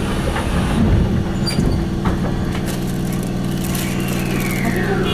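Kintetsu 3220 series electric train accelerating out of a subway station: a steady low motor hum with scattered clicks from the wheels and track, and a whine that falls in pitch near the end.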